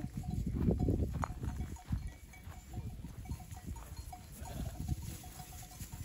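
A flock of sheep, with faint short calls from the animals over a low rumbling noise.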